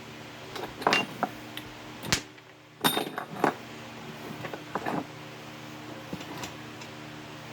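Scattered metal clinks and knocks of hand tools and the crimped copper connector being handled, with the loudest clusters about one, two and three seconds in, over a steady low hum.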